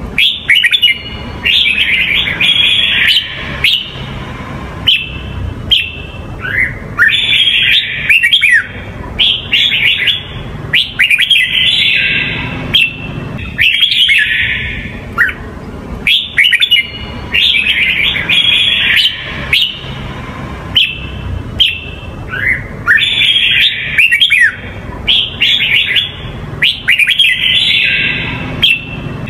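Red-whiskered bulbul of the Huế song type singing: loud, bright phrases of quick rising and falling whistled notes, repeated every second or two with short gaps between them.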